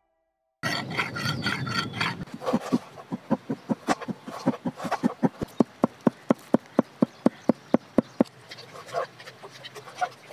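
Cleaver chopping raw chicken on a chopping board to mince it into keema: a long run of even, sharp chops, about four a second, after about a second and a half of a denser noisy sound.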